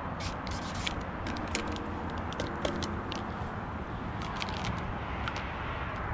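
Paint marker scratching and ticking in quick short strokes on a metal pole, thickest in the first second, with a few more light clicks and scrapes a little past four seconds, over a steady low background rumble.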